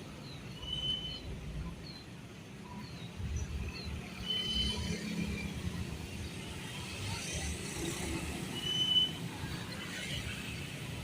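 Road traffic passing, with vehicles going by in a steady low rumble that swells twice. A few short, high chirps sound about every four seconds.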